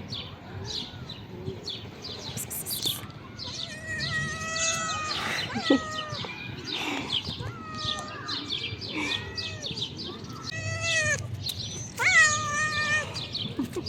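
Calico cat meowing repeatedly, about five drawn-out meows, the first about three and a half seconds in, over a steady scatter of small clicks.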